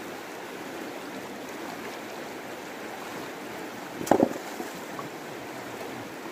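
Shallow river flowing over a rocky bed, a steady rush of water, with one brief sharp knock about four seconds in.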